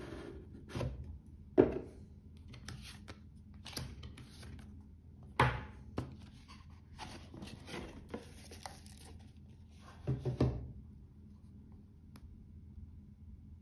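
Cardboard watch box being handled and opened: sliding and scraping of the box parts and paper, with several sharp knocks and taps. The loudest knocks come about a second and a half in and about five and a half seconds in, and there is a quick cluster of thumps about ten seconds in.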